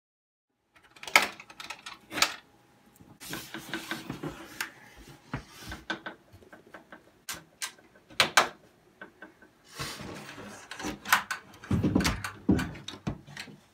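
Wooden sauna wall panels being handled and fitted together: several sharp knocks of wood on wood, with scraping and rustling in between, starting about a second in.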